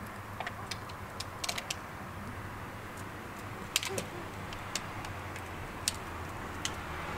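Steady low hum of vehicle traffic with scattered sharp clicks and taps at irregular moments, the loudest a little under four seconds in.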